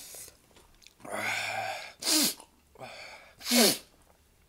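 Two sneezes about a second and a half apart, the first after a long, noisy intake of breath, the second the louder: a reaction to the heat of ghost pepper.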